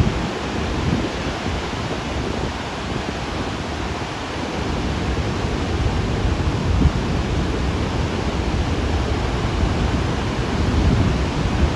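Steady rushing of water pouring through Table Rock Dam's open floodgates into the river below, with some low rumbling from wind on the microphone.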